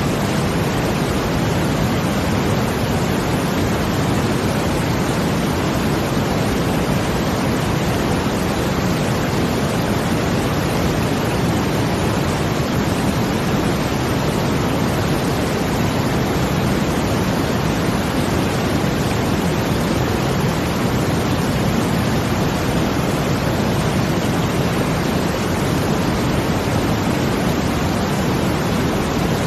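Brown noise blended with rushing water: a steady, even hiss weighted toward the low end, with no swells, breaks or separate events.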